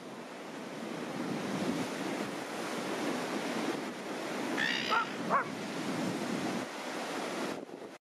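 Strong wind buffeting the camera's built-in microphone over surf washing up the beach. About five seconds in, two short dog barks rise briefly above the noise.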